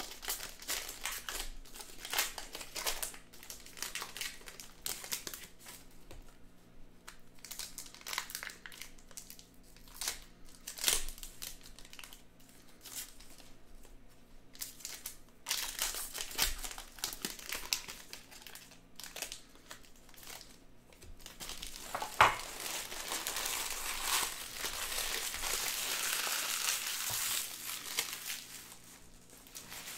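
Upper Deck Goodwin Champions card-pack wrappers crinkling and being torn open, with scattered clicks and rustles of handling. The crinkling gets denser in the second half, with one sharp snap just past the middle.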